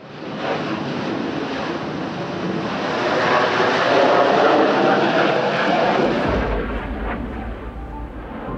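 Jet noise from an F/A-18 Classic Hornet's twin turbofans on takeoff and climb-out: a loud, steady roar that builds for about four seconds. About six seconds in it gives way to a deeper, duller rumble.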